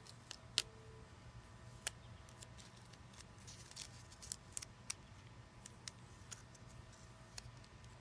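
Painter's tape being slowly peeled off a painted wooden panel: faint scattered crackles and sharp little ticks, thickest around the middle.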